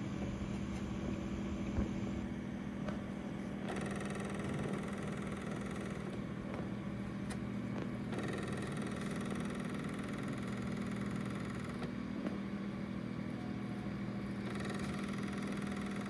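A running Mac Pro 5,1 tower with its side open, its cooling fans giving a steady even hum with one clear low tone.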